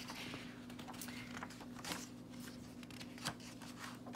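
Pages of a hardcover picture book being opened and turned by hand: faint paper rustles and a couple of soft taps, over a low steady hum.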